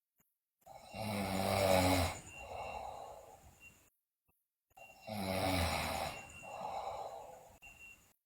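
A sleeping girl snoring loudly: two breaths about four seconds apart, each a loud pitched snore followed by a softer breath, with dead silence between them. The first snore is the louder.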